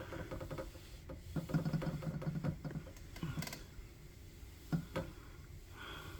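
Raccoons eating from food bowls: a quick run of crunching and clicking in the first half, then a few separate clicks.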